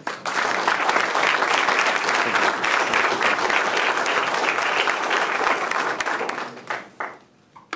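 Audience applauding, starting suddenly and dying away in the last second or so with a few scattered final claps.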